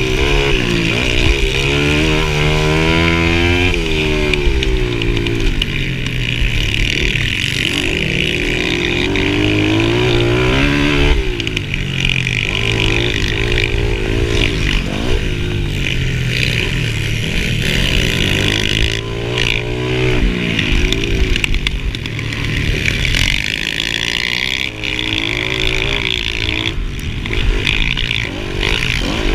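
A mini dirt bike's engine, heard from on the bike, revving hard and repeatedly climbing and dropping in pitch as the rider accelerates and backs off around the track.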